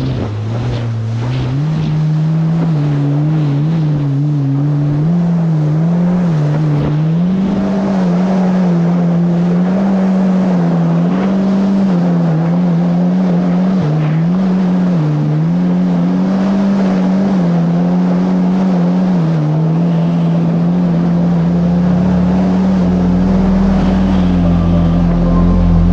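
Yamaha GP1800R SVHO jet ski's supercharged four-stroke engine running at steady cruising speed, its pitch dipping and rising a little as the throttle changes. A deeper rumble joins about twenty seconds in.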